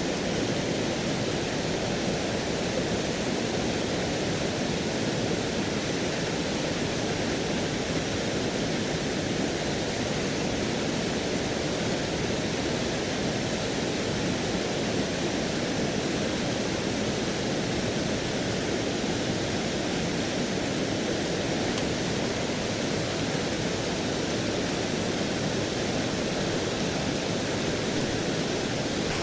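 A river in flood, its fast, swollen water rushing past with a steady, unbroken noise.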